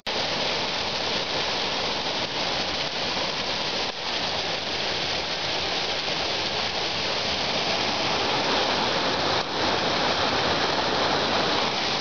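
Small mountain waterfall pouring over rocks: a steady, even rush of falling and splashing water.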